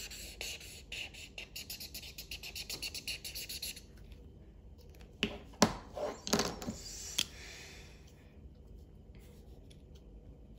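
Felt-tip marker scribbling in rapid back-and-forth strokes on paper, colouring in, which stops about four seconds in. A few louder knocks and clicks follow near the middle as the marker is put down and another is picked up.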